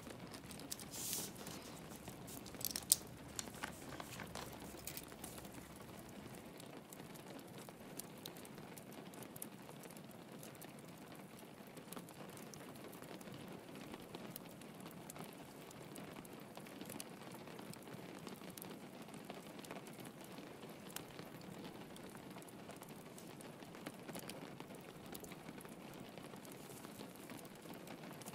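Steady soft rain patter mixed with a crackling log fire: scattered pops and snaps, the loudest cluster about one to three seconds in.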